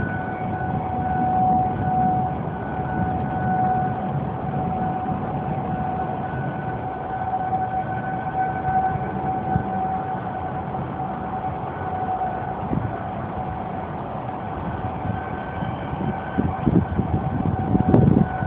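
Outdoor tornado warning siren sounding one steady wailing tone that swells and fades in loudness, signalling a tornado warning. Beneath it runs a low rumbling noise, which grows gusty near the end.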